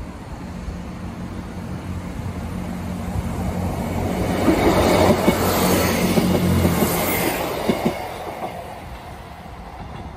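A Northern Rail Class 158 diesel multiple unit approaching and passing at speed: a steady diesel engine drone builds as it nears, the wheels click over the rail joints as it goes by at its loudest about halfway in, then the sound fades away.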